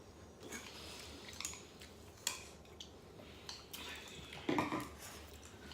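Eating utensils clinking and scraping against bowls and plates while people eat, with a few sharp clicks and a louder clatter near the end.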